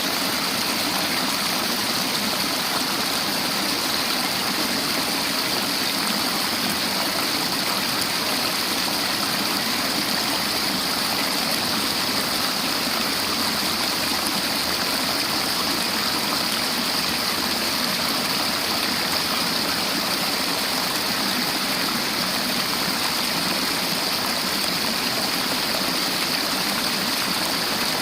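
River water flowing and rushing over rocks in a steady, unbroken rush, with a bright hiss.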